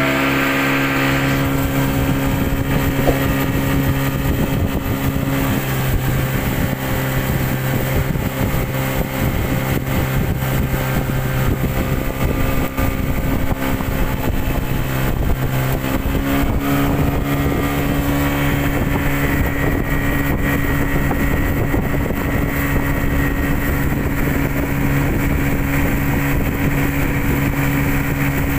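A small boat's 30-horsepower outboard motor running steadily over a constant rushing noise. Its tone shifts slightly higher a little over halfway through.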